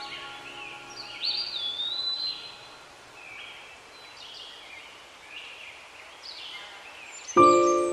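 Birds chirping and calling repeatedly, with one longer whistled call about a second in. Background music notes come in loudly near the end.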